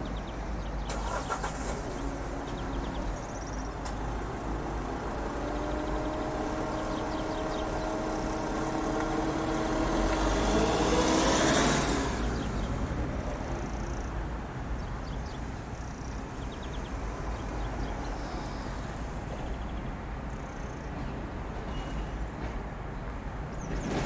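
A distant engine drones past, growing louder to a peak about halfway through with a brief rise in pitch, then fading, over a steady background hiss and low rumble.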